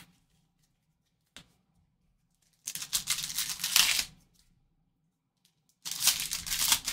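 Foil wrapper of a trading-card pack being torn open by gloved hands: two long tears, the second starting about three seconds after the first.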